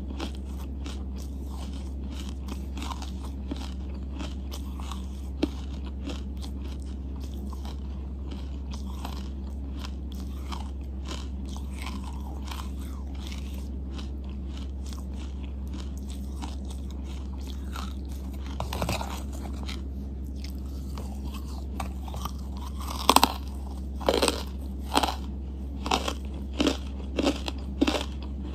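Close-miked chewing of charcoal: soft, crackly chewing for most of the time, then, about two-thirds of the way in, a run of loud, sharp crunches about one a second as the hard chunks are bitten through. A steady low hum lies underneath.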